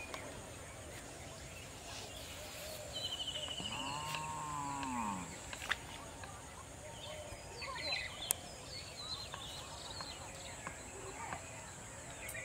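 Open rice-paddy ambience: birds calling in short chirps and trills over a steady high insect drone. About four seconds in, a low call rises and falls in pitch for about a second and a half, a cow lowing.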